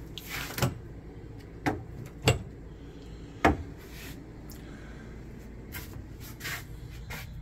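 Wooden louvered cabinet doors being handled and swung open, giving a series of short sharp knocks and clicks, the loudest about three and a half seconds in, then a few fainter ones.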